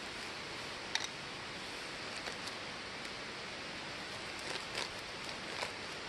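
Steady low outdoor hiss with a few faint clicks scattered through it.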